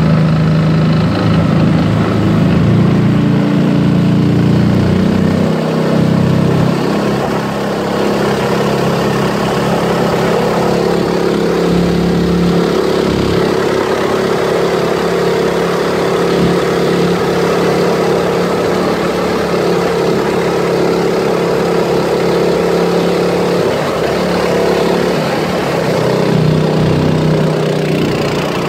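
Outboard motor pushing an aluminum Grumman sport boat along at speed. The engine runs steadily, its note shifting a couple of times.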